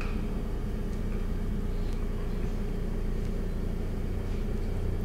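Steady low mechanical hum of kitchen equipment, with a few faint soft taps from a pastry brush working melted butter.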